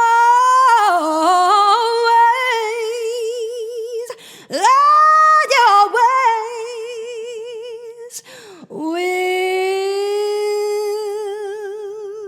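A woman singing unaccompanied: three phrases of long held notes with a wide, even vibrato, the last note held for about three seconds.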